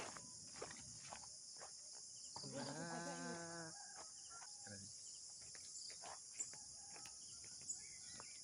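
Steady, high-pitched chorus of insects. About two and a half seconds in, a single drawn-out pitched call lasts over a second, along with a few faint knocks.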